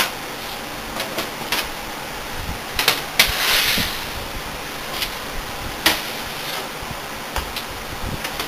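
Clicks and knocks of hands and a screwdriver working on a desktop computer's metal case while removing its side panel, with a brief scrape about three seconds in.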